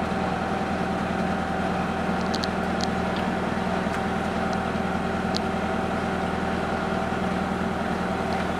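Inboard engine of a 1936 wooden powerboat running steadily at slow harbor speed, heard as an even hum from the wheelhouse.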